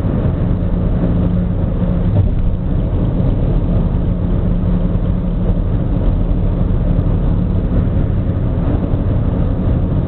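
Steady road and engine rumble inside a car's cabin while cruising on a highway at about 100 km/h.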